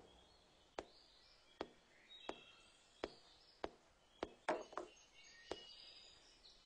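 Faint, sharp clicks and knocks, about ten of them at uneven intervals, over a quiet background with faint high chirps.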